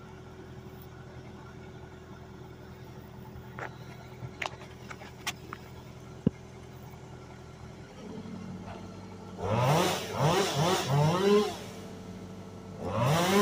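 Chainsaw idling steadily with a few light clicks, then revved in a string of short throttle blips from about nine seconds in, each one rising and falling in pitch, and revved again near the end.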